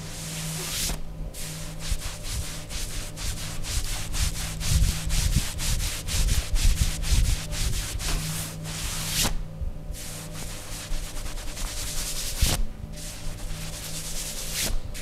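Hands rubbing briskly over a person's body during a massage, in rapid repeated friction strokes, several a second, with brief pauses about a second in and again near ten seconds.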